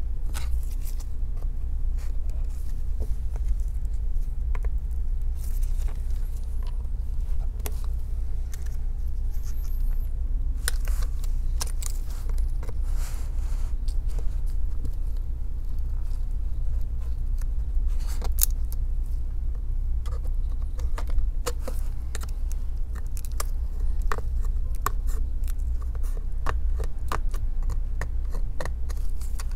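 Scattered small clicks and light scrapes of a precision screwdriver and tiny screws and brackets being handled in an opened MacBook Air's aluminium chassis, more frequent in the second half, over a steady low hum.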